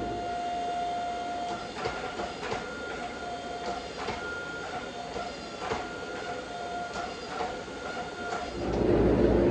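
Gas forge running with a steady whine, while the steel tongs clink and knock against the Damascus billet a handful of times as it is worked in the fire. A louder rushing noise comes in near the end.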